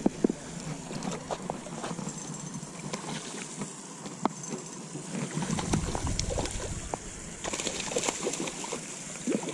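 Handling of a spinning rod and reel: scattered light clicks and knocks, with a low rumble about halfway through.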